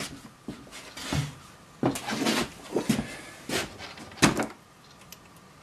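Wooden knocks, scrapes and clatter of a plywood drawer and its clamped drawer front being handled, in irregular bursts with the sharpest knock a little over four seconds in.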